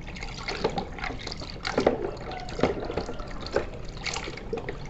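Water splashing and sloshing in a plastic tub as a hand swishes and scrubs plastic toy trucks through it, in irregular splashes.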